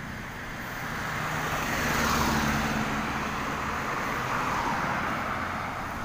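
A motor vehicle driving past on the road, getting louder to about two seconds in and then fading away.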